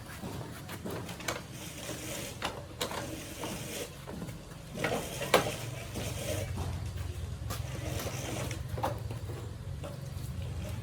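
Scattered clicks and knocks, the loudest a sharp clack about five seconds in, over a low steady hum that grows stronger from about six seconds in.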